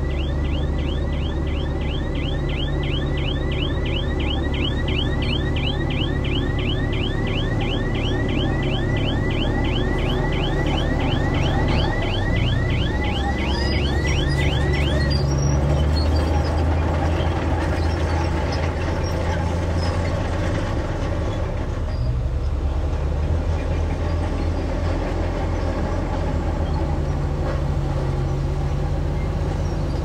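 Bulldozer's diesel engine running steadily under work, with a high squeak repeating about four times a second that stops about halfway through. After that the engine is heard alone, a little louder around the middle.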